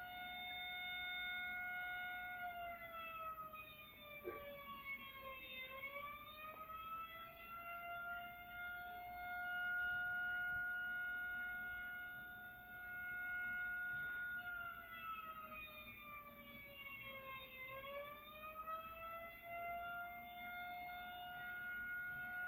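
Tornado warning siren sounding one steady tone that twice slides down in pitch and climbs back up again, played back from a recorded video.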